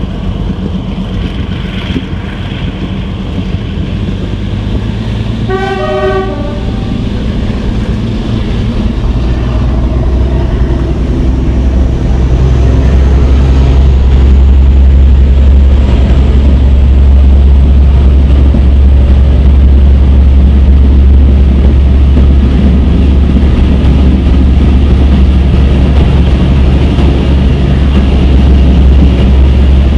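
Train hauled by Class 42 Warship diesel-hydraulic D821 'Greyhound', heard from an open carriage window: the locomotive's Maybach MD650 engines working and the coaches running, with a short horn blast about six seconds in. From about nine seconds in the sound grows louder into a heavy, steady low drone as the train runs into a tunnel.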